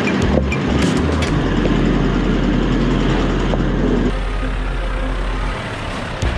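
A four-wheel-drive vehicle driving over a rough dirt track: engine and tyre noise with scattered knocks and rattles. The sound changes abruptly about four seconds in.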